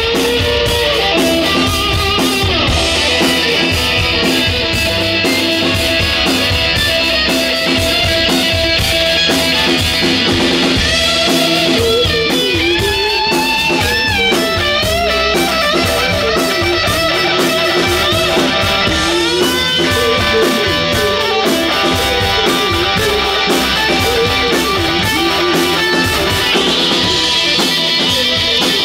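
Live rock band playing, with an electric guitar leading over bass and drum kit; about halfway through, the guitar bends and wavers its notes.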